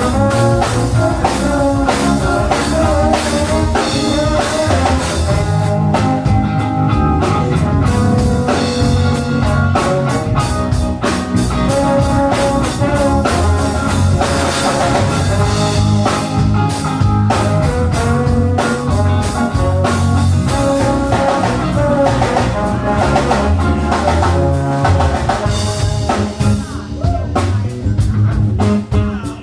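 Instrumental music: guitar over a drum kit, playing a steady blues-rock groove.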